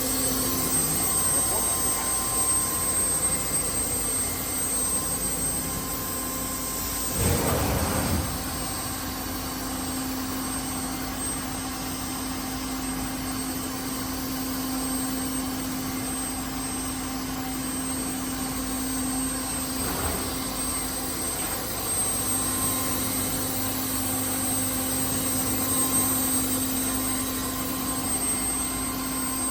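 CNC router with an automatic tool changer running: a steady mechanical hum with a held low tone and a thin high whine, broken by a brief louder rush about seven seconds in.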